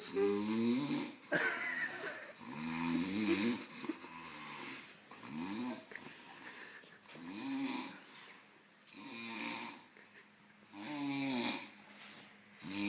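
A sleeping person snoring heavily, a rasping pitched snore that rises and falls about every one and a half to two seconds.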